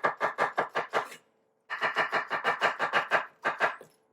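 A French chef's knife chopping walnuts on a cutting board in fast, even strokes, about seven a second. The chopping stops briefly about a second in, then resumes and slows near the end.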